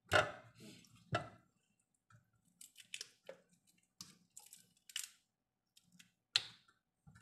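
Raw shrimp being peeled by hand: small crackling, clicking noises as the shells are pulled off, with a few louder knocks, the loudest near the start, about a second in and near the end.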